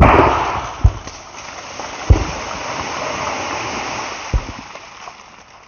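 Diwali firecrackers packed into a buried container exploding underground. A sudden heavy blast is followed by a continuous rushing hiss and three more sharp bangs, about one, two and four seconds in, fading out near the end.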